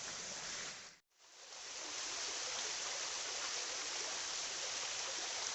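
River water rushing steadily. The sound drops out briefly about a second in, then fades back up.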